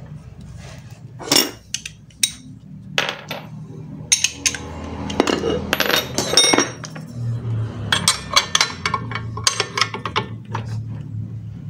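Metal parts of a scooter's CVT clutch and hand tools clinking and tapping as they are handled, a string of sharp irregular clinks over a faint low hum.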